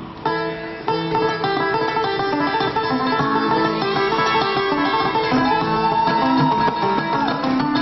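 Acoustic string band playing fast bluegrass-style music live, led by a picked five-string banjo over upright bass and guitar. The music cuts in suddenly just after the start and then runs on at a steady loud level.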